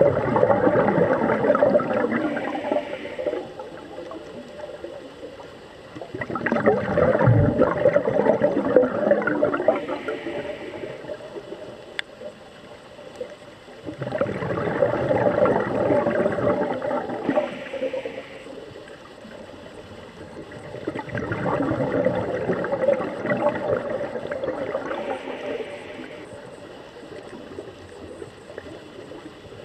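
Scuba diver breathing through a regulator underwater. Exhaled bubbles gurgle four times, each for a few seconds, about every seven to eight seconds, with a short hiss of the regulator between them.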